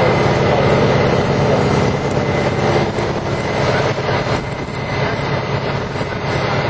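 Wind-driven brush fire burning, a loud steady rushing noise of flames and wind, with a steady engine drone underneath.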